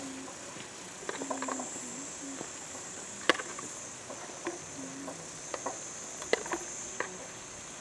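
Metal spoon clinking and scraping against a steel frying pan and the steel kebab skewers while basting lamb kebabs in hot oil, a string of sharp clinks with the sharpest about three and six seconds in. Under it runs a steady high-pitched hiss.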